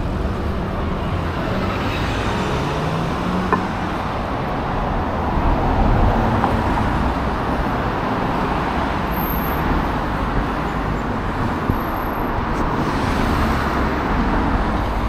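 Road traffic: a steady wash of passing cars, with one vehicle's note rising in pitch about three seconds in.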